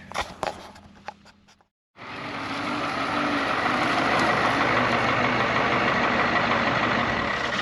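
A large diesel engine running, coming in about two seconds in and building up to a steady loud run, after a few faint clicks.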